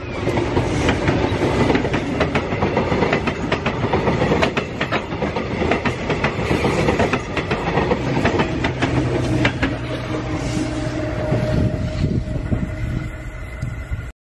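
Metrorail electric multiple-unit commuter train passing at close range. Its wheels click over the rail joints in a long run of clacks above the steady running noise. The sound cuts off suddenly near the end.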